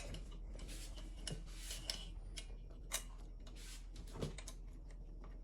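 Metal clicks and scraping from hands working a new chainsaw's chain and bar: a rasping scrape about a second in, and a few sharp clicks spread through.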